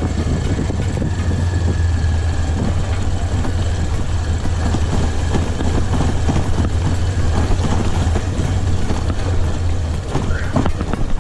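Motorcycle engine running steadily while riding, a strong low, even drone under road and wind noise.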